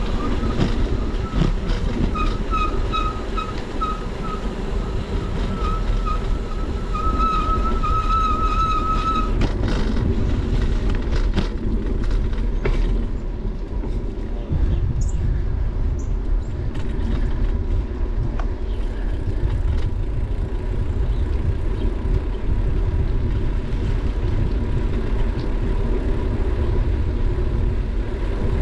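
Steady wind rumble on a bike-mounted GoPro's microphone, with bicycle tyres rolling over asphalt. For the first nine seconds or so a high chirping repeats about twice a second, quickening into a fast trill before it stops, followed by a few light clicks.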